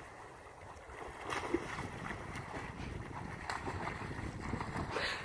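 Dogs swimming in a lake, their paddling churning and splashing the water, with a few sharper splashes. Wind rumbles on the microphone.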